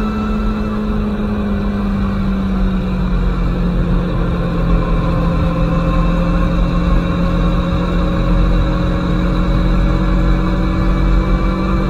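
Aprilia Tuono motorcycle engine running on the move at a steady throttle, its pitch rising slowly through the second half as it picks up speed, over a low wind rumble.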